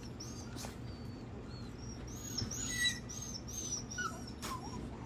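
Puppies whining from their travel crates: a string of short, high-pitched cries, bunched in the middle.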